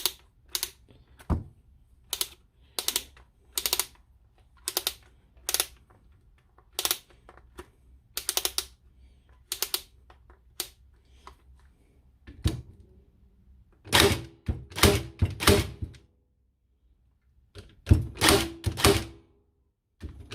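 Ryobi R18ST50 18V cordless crown stapler firing staples into softwood at a higher power setting: sharp single snaps about one a second, then from about two-thirds of the way in, quicker groups of louder shots with a brief metallic ring.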